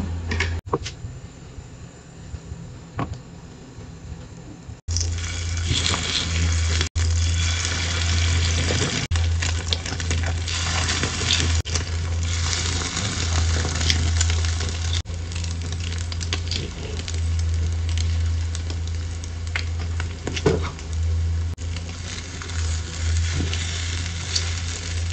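Milk-soaked baguette slices frying in butter in a nonstick pan: a steady sizzle, quieter for the first few seconds and louder from about five seconds in, over a low steady hum. Occasional light clicks of chopsticks against the pan and bread.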